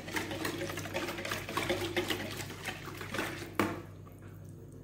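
Wire balloon whisk beating a runny batter in a plastic bowl: a fast, even rattle of wire against bowl and liquid. It ends about three and a half seconds in with one sharp knock as the whisk is set down against the bowl.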